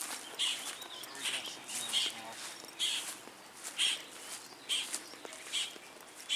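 A bird giving short, harsh calls over and over, about one a second.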